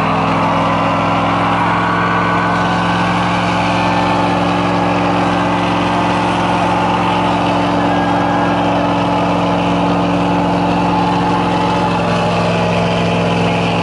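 Pickup truck's engine held at steady high revs while its rear tyres spin in a burnout, with a hissing tyre noise over the engine's unchanging pitch.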